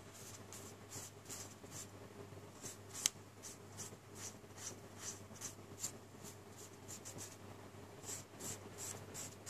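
A paintbrush stroking paint onto paper in repeated short strokes, about two a second and unevenly spaced, with one sharp click about three seconds in.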